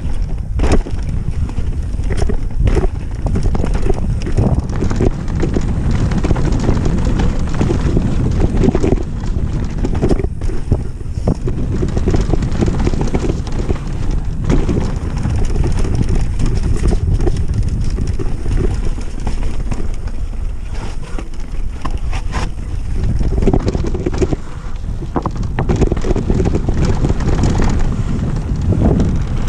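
Wind buffeting the microphone on a mountain bike descent, over a steady rumble of tyres on a rough trail. Frequent short knocks and rattles come from the bike over bumps.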